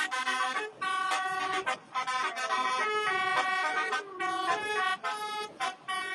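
Bus telolet horn, a multi-tone air horn, playing a melody: a run of loud held notes of changing pitch with short breaks between.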